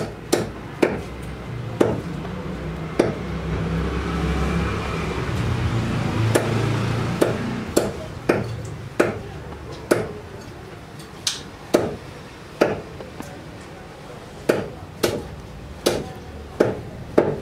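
A butcher's cleaver chopping meat on a block: sharp, irregular chops, roughly one a second, some in quick pairs. A low rumble swells and fades in the middle.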